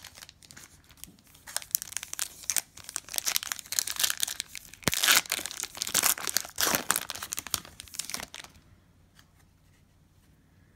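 A shiny foil-type trading-card pack wrapper torn and crinkled in the hands as the pack is opened, loudest about halfway through; the crinkling stops shortly before the end.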